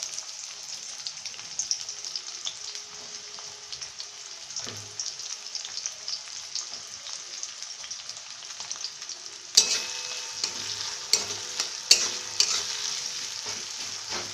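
Chopped onions sizzling in hot mustard oil in a metal kadai. About two-thirds of the way through, a spatula starts stirring them: the sizzle gets louder, and sharp scrapes and taps of the spatula on the pan come in.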